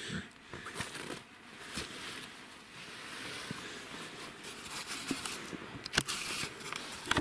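Rustling and handling noise: stiff clothing fabric and dry leaves shifting, with scattered small clicks and two sharp knocks near the end.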